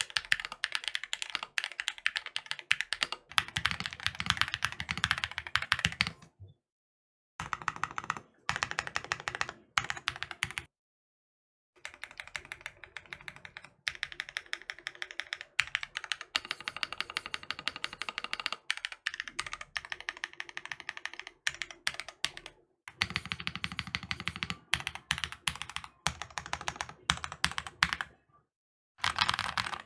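Fast typing on a custom mechanical keyboard fitted with stock Red Jacket 2.0 linear switches (nylon housings, HPE stems), a dense run of crisp keystrokes, some stretches with a deeper, fuller bottom-out. The typing cuts off abruptly into dead silence a few times and resumes.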